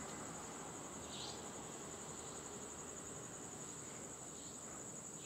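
Night insects trilling: a steady, high-pitched trill, with a faint short chirp about a second in and again near the end.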